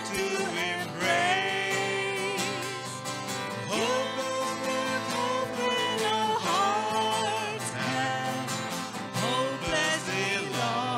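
Live worship hymn: acoustic guitar and violin accompanying a man and a woman singing the melody.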